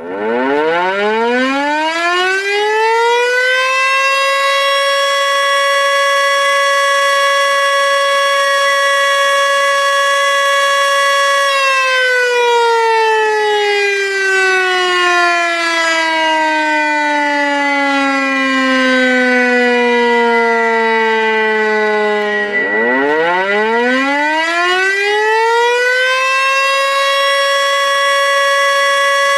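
Tornado warning siren winding up over about four seconds to a steady high wail and holding it. About eleven seconds in it slowly winds down to a low pitch, then winds straight back up and holds the high wail again.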